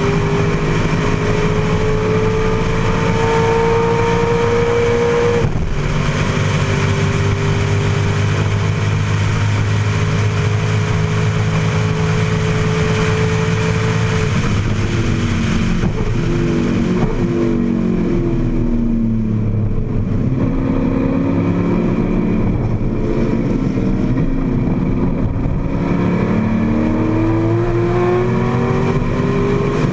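AC Cobra's V8 engine under racing load, heard from the open cockpit. It pulls up through the revs, with an upshift about five seconds in, and keeps pulling. Past the middle it falls away through downshifts under braking, then accelerates hard again near the end.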